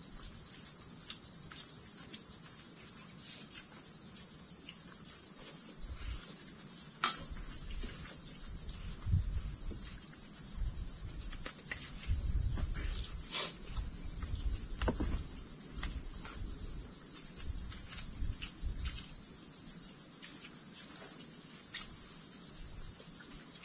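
Loud, steady, high-pitched insect chorus, unbroken throughout.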